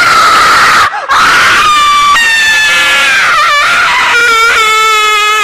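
A person screaming at a high pitch: a short scream, a brief break about a second in, then one long, loud scream that wavers in pitch near the middle.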